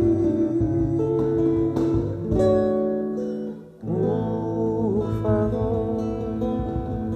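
Instrumental ending of a romantic ballad arrangement led by acoustic guitar, with chords held under it. The sound drops briefly a little past halfway, then a last chord comes in and rings on, slowly fading.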